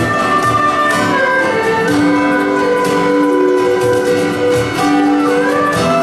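A Chinese traditional instrument ensemble of erhu, pipa, guzheng and acoustic guitar playing a slow melody in long held notes, with a sliding note shortly before the end.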